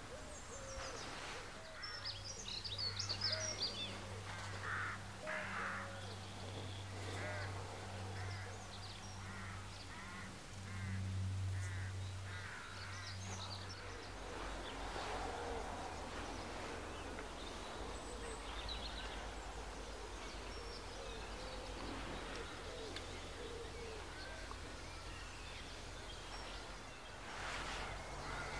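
Small birds singing and chirping in open countryside, with many short warbling calls throughout. A steady low hum runs beneath them for the first half and stops about halfway through.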